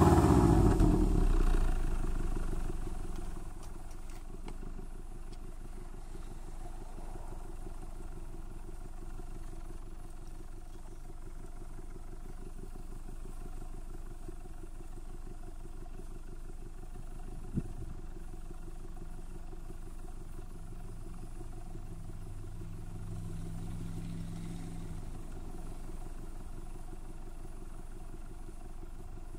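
Exhaust of a 2005 Subaru Impreza 2.5 RS flat-four on an overnight cold start, with unequal-length headers and the stock cat-back. The revs fall away over the first few seconds and settle to a steady idle, which swells slightly for a few seconds later on. A single sharp click comes about two-thirds of the way through.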